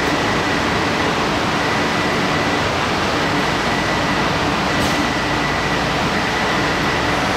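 Taipei Metro Wenhu Line rubber-tyred driverless train running, a steady rumble with a faint whine that comes and goes.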